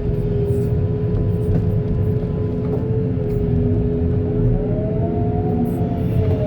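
Diesel engine of heavy earthmoving machinery running steadily under load, with a low rumble and a steady whine over it. About five seconds in, a higher tone rises and falls again.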